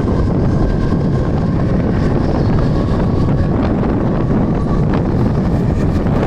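Mumbai suburban electric local train running, heard from on board: a steady rumble of wheels and motion with wind buffeting the microphone and a faint high whine.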